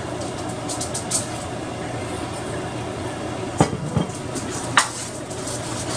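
A spoon scrapes and clinks against a baking dish as sauce is spread over the bottom, with three sharp clinks in the second half. A steady low hum runs underneath.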